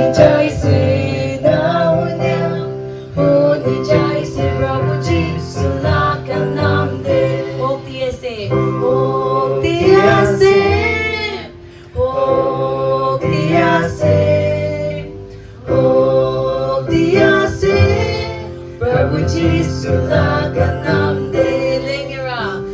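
Live praise-and-worship music: singing, with a woman's voice prominent, over guitar and instrumental backing, in phrases a second or two long.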